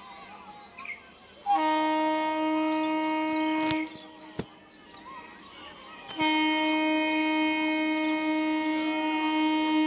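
An EMU local train's horn sounds two long, steady, single-pitched blasts as the train approaches. The first lasts about two and a half seconds, and a longer second blast starts about six seconds in.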